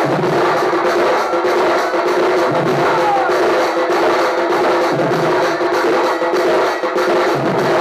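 Kalahandi baja folk ensemble playing: a loud reed pipe holds a steady note with a few downward-sliding phrases, over fast, dense beats on a shoulder-slung barrel drum (dhol) and a stand-mounted drum, with a deeper drum stroke about every two and a half seconds.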